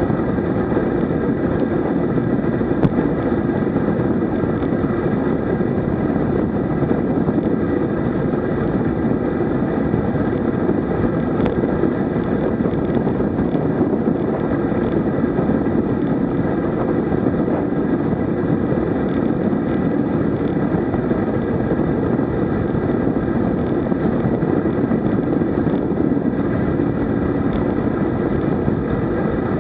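Steady, loud rush of wind on the microphone of a camera mounted on a road bike descending at about 53 km/h.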